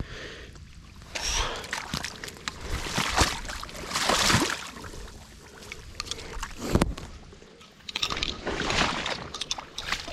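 Marsh water sloshing and splashing in irregular swishes as someone wades through it, the stirrings of a hunter moving about in waders.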